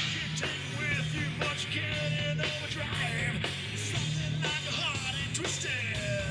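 Live rock band playing, with a steady drum beat under bass and sliding high pitched lines.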